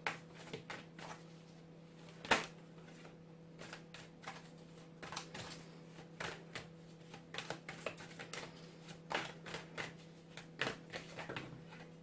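A deck of tarot cards being shuffled and handled: an irregular run of soft card clicks and slaps, the loudest about two and a half seconds in.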